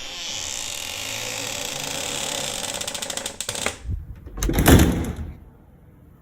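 A rapid mechanical rattle of fast, even ticks for about three and a half seconds, then a single heavy thump about a second later.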